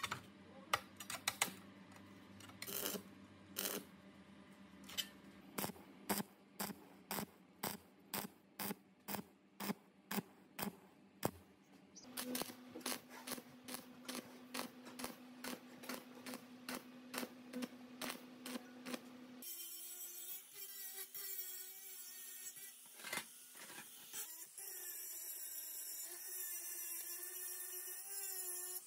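Sheet-steel tray fabrication: a run of sharp metallic taps, settling to about one or two a second, then, about two-thirds of the way through, a steady crackling hiss from stick welding.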